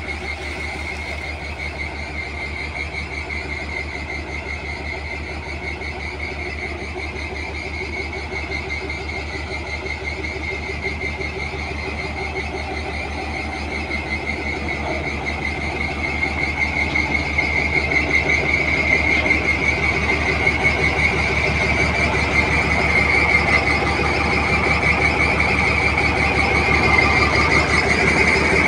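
Heavy diesel engine of a motor grader idling steadily, with a continuous high squeal over it that grows louder in the second half.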